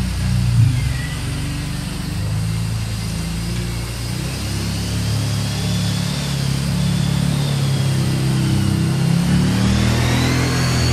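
Kawasaki Brute Force 750 ATV's V-twin engine driving around, its pitch rising and falling with the throttle, getting a little louder near the end.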